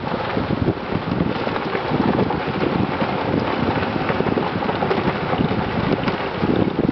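Wind buffeting the microphone: a steady, loud rushing and fluttering noise.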